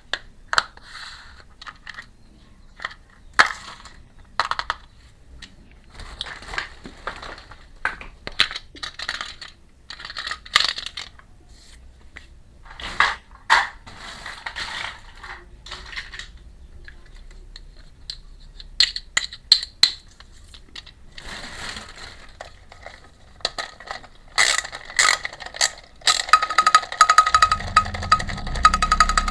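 Small miniature toy kitchen pieces handled and set down: a string of light clicks, taps and rustles. Near the end a steady buzz with a high whine starts and carries on.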